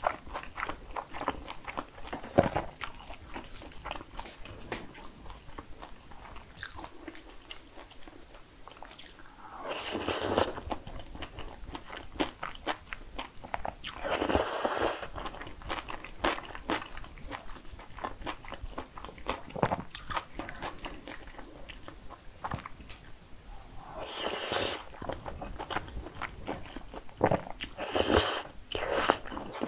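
Close-miked wet chewing of jajangmyeon (black bean sauce noodles), with many small mouth clicks and several loud noodle slurps, about ten, fourteen, twenty-four and twenty-eight seconds in.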